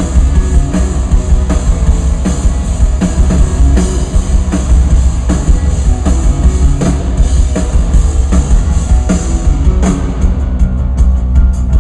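Rock band playing loud through an arena PA during a sound check: drum kit and guitars over a heavy, booming bass. About ten seconds in the cymbal wash drops away, leaving quick hi-hat ticks.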